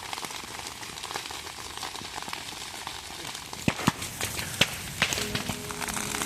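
Vegetation burning in a slash-and-burn field fire, crackling with a steady hiss and sharp pops, several of them loud in the second half.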